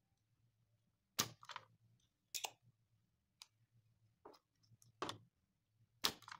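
Spring-loaded desoldering pump (solder sucker) snapping and being re-cocked while solder is sucked off the IGBT's terminals: about six sharp clicks, roughly one a second.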